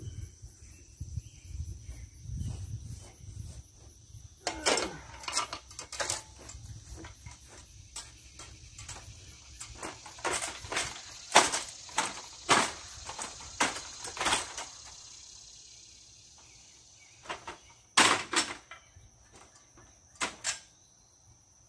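Aluminium extension ladder being handled and set up: a run of sharp metallic knocks and rattles over about ten seconds, then two more knocks later on.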